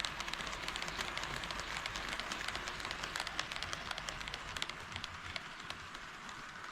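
HO scale model train running on sectional track, its wheels rattling and clicking rapidly over the rail joints; the low rumble fades after about four and a half seconds.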